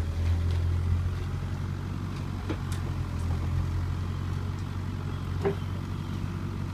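Bobcat E42 compact excavator's diesel engine running steadily while the arm and bucket dig, with a few short knocks about two and a half and five and a half seconds in.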